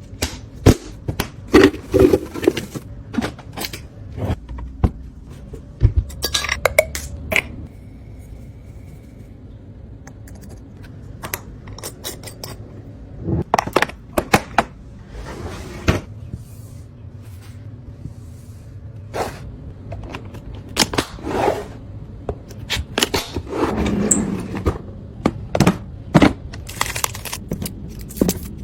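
Containers, jars and bottles being set down and slid onto fridge shelves while restocking: irregular clinks, knocks and scrapes of glass and plastic.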